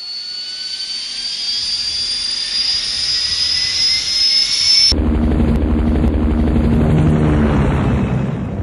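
Jet engine spooling up, a rising whine over a rushing hiss, then about five seconds in cutting abruptly to a loud, low, steady rumble of full power.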